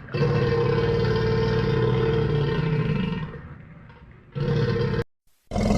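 A large animal's deep, steady roaring call lasting about three seconds, then a second shorter call that cuts off abruptly, followed by a brief silence and the start of another loud call.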